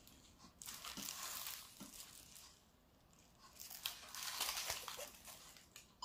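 Faint crinkling of plastic packaging being handled, in two stretches of a second or two each: one starting about half a second in and one starting about four seconds in.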